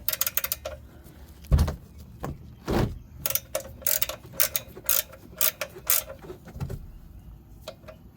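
Hand ratchet wrench clicking in short quick runs as a bolt is turned, with two heavier knocks of metal on metal about a second and a half and three seconds in.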